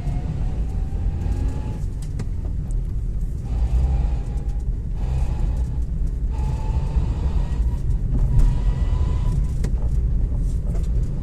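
Hyundai Grand i10 on the move, with a low rumble and a thin humming whine from its manual gearbox that rises in pitch several times as the car accelerates through the gears. The hum is worst in second and third gear and is traced to gears worn to metal in a gearbox run very low on oil.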